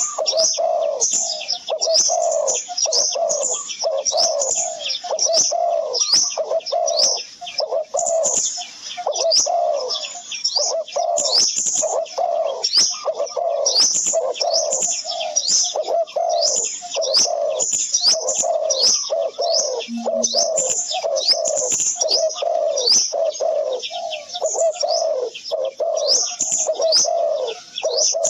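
A chorus of birds calling without a break: a steady run of low repeated calls, about two a second, under dense high chirping.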